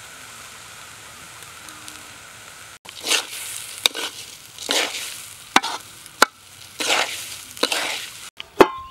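Rice being stir-fried in a large metal wok. A faint steady sizzle comes first. From about three seconds in, a metal spatula scrapes and pushes the rice in repeated swishes about once a second, with sharp clicks where the spatula strikes the pan.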